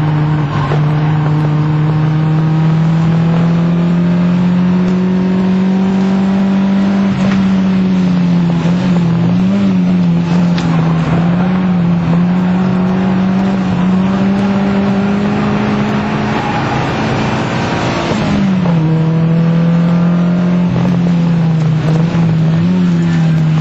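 Fiat Punto Mk1's 1.2 16v four-cylinder petrol engine running hard under load, heard from inside the cabin with road and wind noise. Its pitch climbs slowly, wavers a few times, then dips sharply about eighteen seconds in and holds steady.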